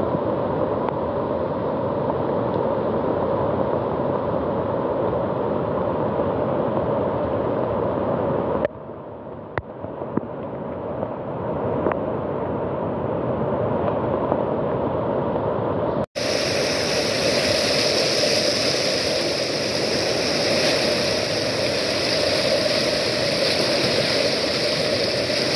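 Steady rushing of the flood-swollen river rapids and the Athirappilly waterfall in spate. About a third of the way in it drops quieter for a moment and swells back. About two-thirds through it cuts abruptly to a brighter, hissier take of the same rushing water.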